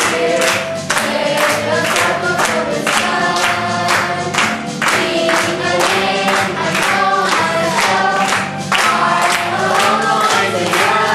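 A group of voices singing together over an upbeat recorded song with a steady beat.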